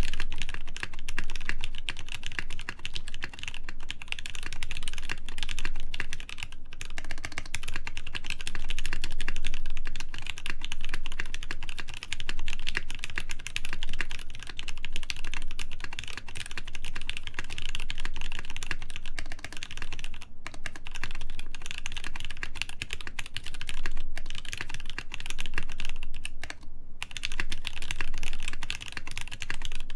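Continuous fast typing on a Hineybush Ladybird mechanical keyboard with lubed Gateron Ink linear switches, an FR4 plate and PBT keycaps: a dense run of keystrokes with a few brief pauses.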